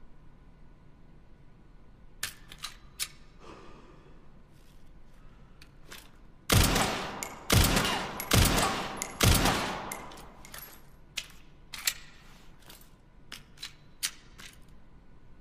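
Four pistol shots about a second apart, each trailing off with a ringing tail, given as the sound of a SIG Sauer P320 handgun. Sharp metallic clicks come before and after the shots.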